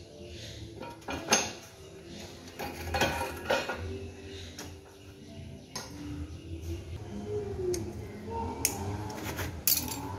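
Irregular metallic clinks and knocks of spanners and metal parts being handled while a motorcycle engine's exhaust and underside are dismantled, the sharpest about a second in and several near the end.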